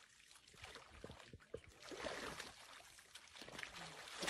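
Lions lapping water: faint, irregular wet splashing.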